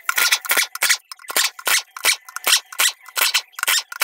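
Rapid, rhythmic scraping strokes of a hand tool against the aluminium case of a Toyota CVT transmission, about three to four strokes a second, with a brief pause about a second in.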